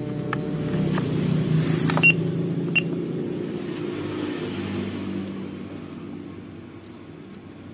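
A motor vehicle engine running close by, swelling over the first couple of seconds and then fading away. Two short electronic beeps from the EDC card terminal's keypad sound near the loudest point.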